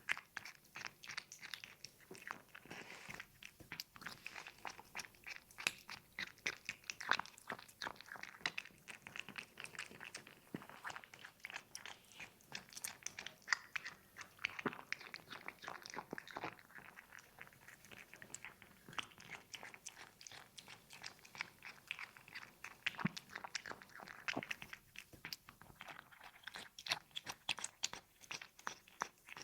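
A cat eating close to the microphone: fast, steady crunching and chewing clicks, several a second, with small pauses.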